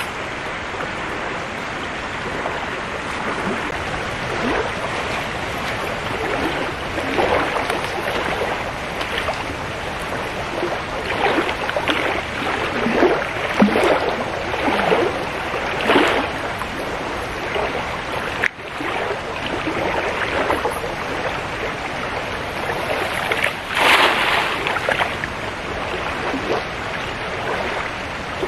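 Swollen, fast-flowing flood river rushing steadily past the bank, with several short, louder splashes; the loudest comes about three quarters of the way through.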